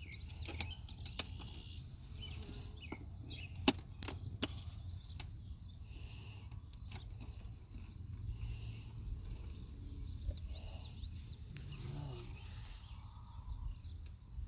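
Wooden beehive frames and a hive tool being handled: scraping and knocking as burr comb is worked off, with a few sharp clicks about three to four and a half seconds in, over a steady low rumble.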